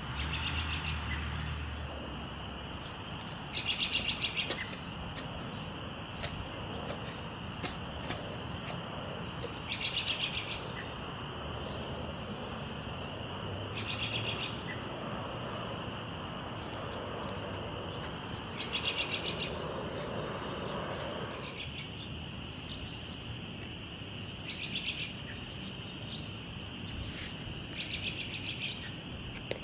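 Songbirds in a garden. One bird repeats a short, loud, rapid trill about every five seconds, with faint chips between, over a steady high-pitched background tone.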